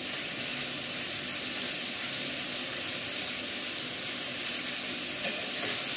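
Chopped vegetables frying in hot oil in a pan, a steady sizzle.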